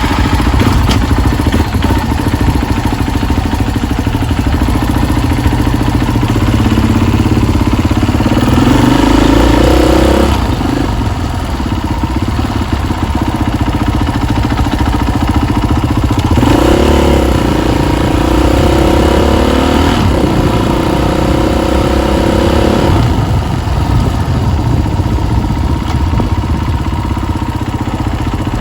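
KTM EXC enduro motorcycle engine running loudly. The engine pitch climbs as the bike accelerates about six to ten seconds in, and again from about sixteen to twenty-three seconds.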